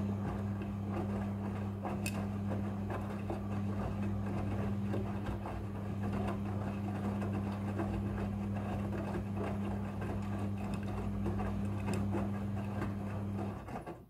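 Midea front-loading washing machine tumbling a wet load during the wash: the drum motor runs with a steady hum while the clothes turn and flop in the drum, then the motor stops shortly before the end as the drum pauses.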